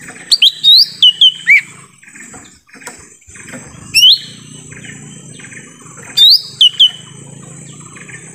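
Lesser green leafbird (cucak ijo mini) singing loud, short, rising whistles in bursts: about five in quick succession near the start, one at about four seconds, and three more just after six seconds. A steady high buzz runs behind them.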